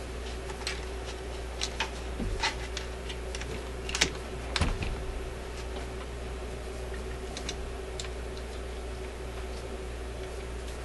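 Scattered small clicks and taps of test leads and alligator clips being handled and clipped on while a test speaker is hooked up, the loudest about four seconds in and thinning out after about five seconds. A steady low hum runs underneath.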